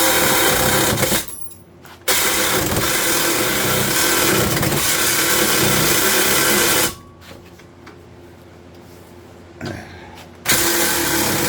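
Cordless 20-volt Porter-Cable reciprocating saw with a Lenox Fire and Rescue blade cutting through double-walled steel exhaust pipe. The saw runs hard with two stops: a short one a little over a second in, and a longer one of about three and a half seconds past the middle.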